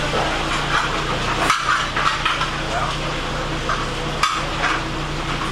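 Restaurant kitchen noise: light clatter and stirring of pots and utensils over a steady low hum, with scattered clicks.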